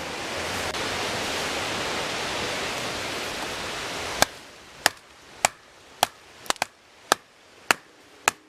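A steady rushing noise, then from about four seconds in a large knife chopping wood with sharp, evenly spaced strikes, a little under two a second.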